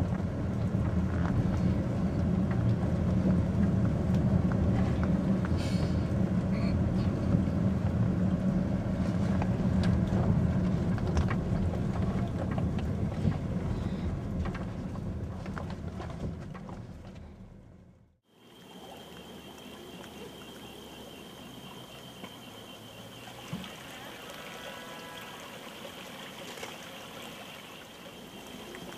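Steady engine and road noise heard from inside a moving car, fading out about two-thirds of the way through. Then quieter running water over shallow flooded ground, with a steady high tone above it.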